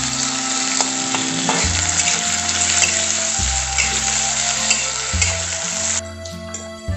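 Chopped onions sizzling as they fry in hot oil in an aluminium kadai, stirred with a spatula. The sizzling cuts off suddenly about six seconds in.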